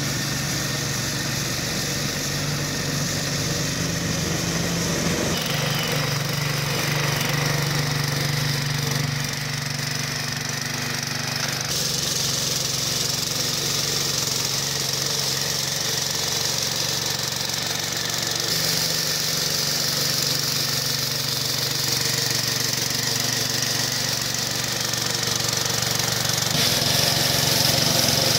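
The small engine of a walk-behind sweeper collector running steadily while it sweeps. Its pitch and tone shift abruptly a few times.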